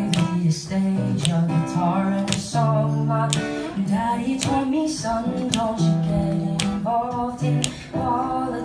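Live acoustic song: an acoustic guitar strummed in a steady rhythm under a man's singing voice.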